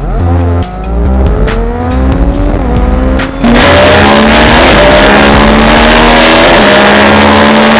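Triumph Street Triple RX's three-cylinder engine revving hard under acceleration, its pitch climbing, dropping at a gear change and climbing again. About three and a half seconds in the sound turns abruptly louder and fuller, with one more drop in pitch near the end.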